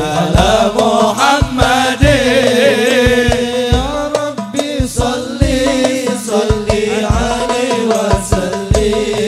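Men singing an Arabic sholawat (devotional praise of the Prophet) into microphones over a PA. The melismatic vocal line wavers, and the singing is accompanied by repeated low drum beats.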